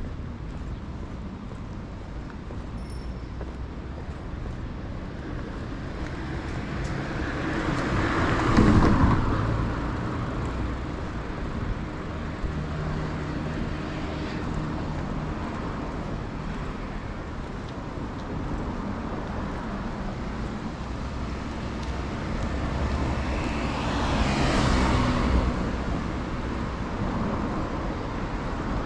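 Road traffic: a steady low rumble with two vehicles passing close, swelling and fading, loudest about eight seconds in and again near the end.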